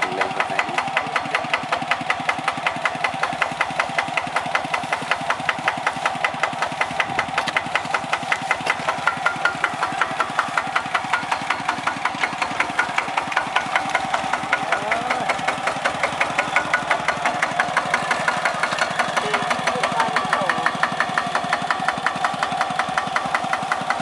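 A small engine running steadily at idle with a rapid, even knocking beat.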